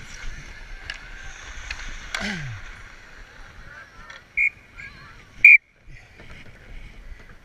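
Ice hockey referee's whistle: two short blasts about a second apart, the second the louder, stopping play. Before them, skates scraping on the ice and sticks clicking.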